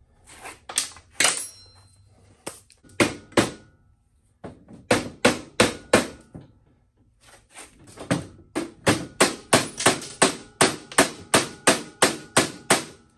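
Repeated hammer blows on a Honda XL70's front fork tubes and triple clamp, driving at forks that are stuck and not moving. A few spaced strikes come first, then steady strings of blows at about three a second, with a slight metallic ring.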